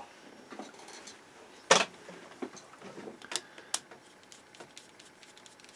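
Clicks and ticks of a plastic power-cord plug end being handled while a screwdriver loosens the single screw that clamps its three conductors. One sharp click comes a little under two seconds in, followed by several lighter ticks.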